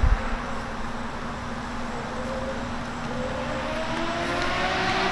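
A motor engine droning, slowly rising in pitch and growing louder toward the end, like a vehicle speeding up or coming closer.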